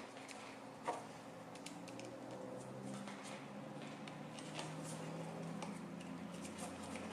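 Small screwdriver turning a screw into the metal body of a Mitutoyo 7003 gauge stand: light metallic ticks and scrapes, with one sharper click about a second in.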